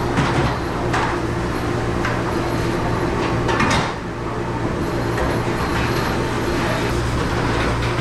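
Steady hum and rush of a commercial dishwasher and its exhaust hood running, with dishes and racks clattering a few times.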